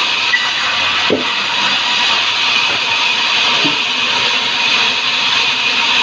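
Sawmill band saw running with a steady, loud noise as a sengon log is fed to the blade, with a single sharp knock about a second in.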